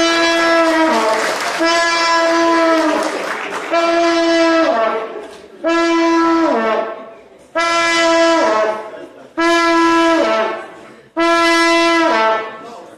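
A brass horn blown in seven long notes on the same pitch, each held about a second and then sliding down at the end, like a drawn-out wail.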